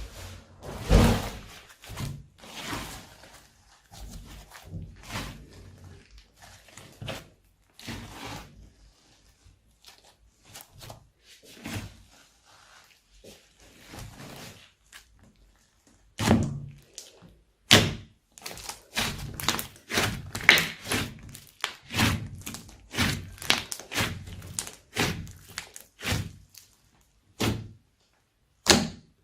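Slime being squeezed, pressed and pulled by hand, giving a string of irregular short clicks and pops. They are softer and sparser through the middle and become louder and more frequent from just past halfway.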